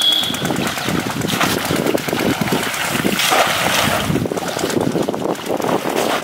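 Water splashing and sloshing in irregular strokes as a woven bamboo plunge basket is thrust down again and again into shallow muddy water, with legs wading through it.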